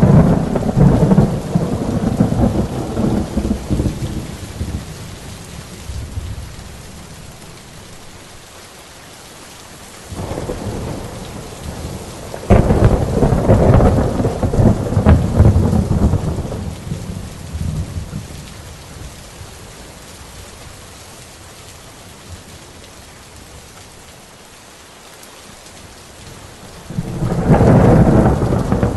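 Thunderstorm: steady rain with long rolls of thunder, one at the start that dies away over several seconds, a weaker one about ten seconds in, a louder one soon after lasting several seconds, and another near the end.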